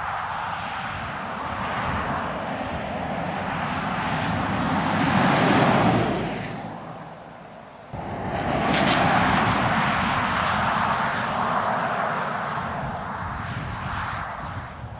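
Land Rover Defender driving past: engine and tyre noise swell as it comes close, peaking about six seconds in and fading away. After an abrupt cut at about eight seconds, a second pass comes in loud and recedes slowly.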